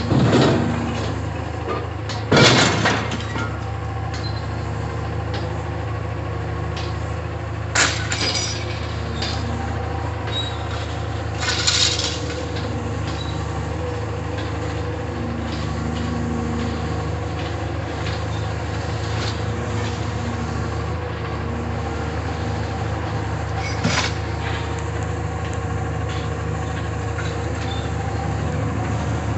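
Caterpillar M322 wheeled material handler's diesel engine running steadily while its grapple loads scrap metal into a rail gondola car, with about five sudden loud crashes of scrap landing, the loudest a little over two seconds in.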